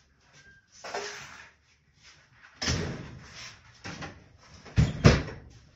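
A series of knocks and bangs, getting louder, with two sharp bangs close together near the end the loudest.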